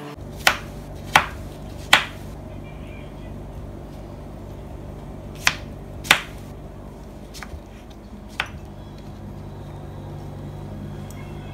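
A kitchen knife cutting papaya and knocking on a plastic cutting board: a few sharp knocks, three close together at the start and two more about halfway, then fainter taps. A steady low hum runs underneath.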